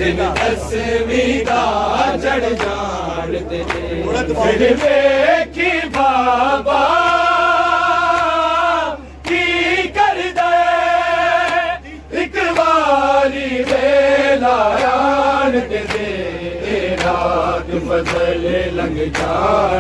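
A Punjabi noha, a Shia lament, sung by men's voices without instruments and drawn out in long held notes.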